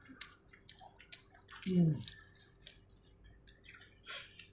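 Crunching and wet chewing of a pani puri, a crisp fried puri shell filled with spiced water, eaten whole in one bite: a string of short sharp crunches and clicks. A brief murmured voice comes in about two seconds in.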